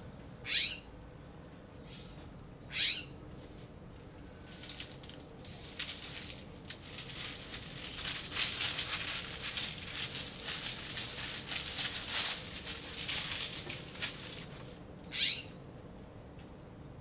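Raccoons moving through dry leaf litter, a crackling rustle of many small clicks through the middle. There are three short sharp hisses: two near the start and one near the end.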